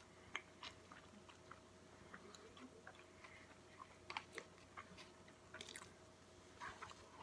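Faint close-up chewing of a mouthful of burger with bacon and onion rings: scattered soft wet mouth clicks and smacks, a few louder ones about four seconds in and near six seconds.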